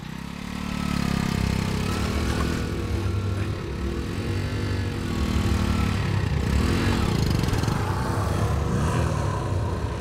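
Motorcycle engine approaching and riding up. It grows louder over the first second, and its pitch rises and falls about four times as the throttle is opened and closed.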